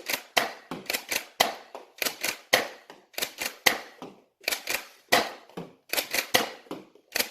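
Nerf Rival Takedown XX-800 pump-action blaster being pumped and fired rapidly: sharp plastic clacks of the priming handle and pops of the shots, coming in quick clusters about once a second.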